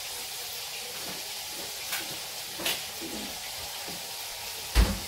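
Chicken frying in a pan on a gas stove, a steady sizzle, with a couple of light clicks and a sharp knock near the end.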